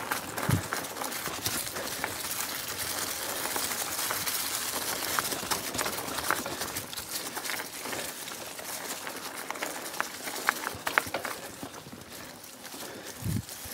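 Mountain bike rolling along a dirt singletrack: steady tyre noise over the trail surface, with frequent clicks and rattles from the bike and a low thump about half a second in and another near the end.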